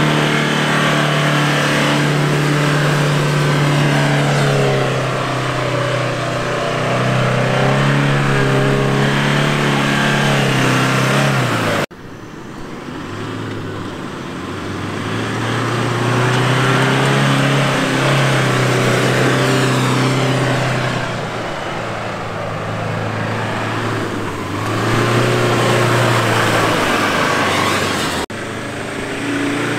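Toyota Fortuner SUV engine revving hard in loose sand, its pitch rising and falling as the throttle is worked through sideways slides. The sound breaks off abruptly twice.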